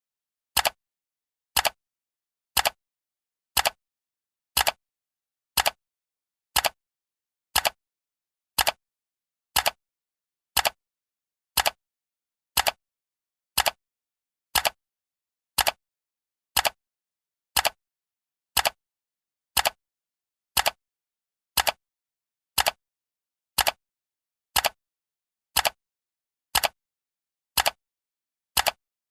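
Clock-style ticking of a countdown timer: one short, sharp tick every second, evenly paced, with silence between the ticks.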